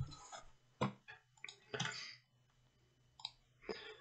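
A few faint, irregular clicks of a computer mouse, with light desk knocks.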